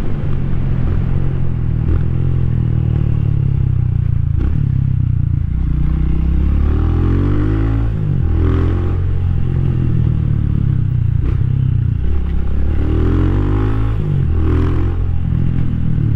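Rusi Classic 250's single-cylinder LX166FMM engine running under way, its pitch rising and falling as it revs up and eases off twice.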